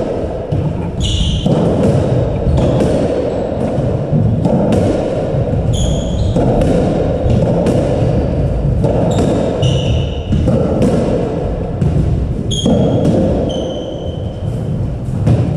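Squash rally: the ball striking rackets and the walls in a run of sharp knocks, with short high squeaks of shoes on the wooden court floor now and then.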